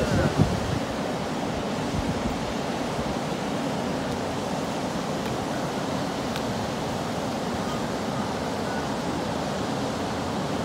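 Steady rush of white water pouring over a dam spillway into the river.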